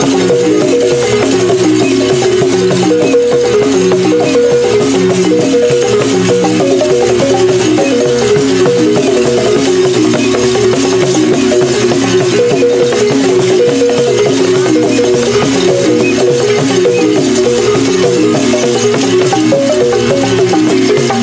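Balafons (wooden xylophones) playing a fast, repeating melody, with shaken rattles throughout.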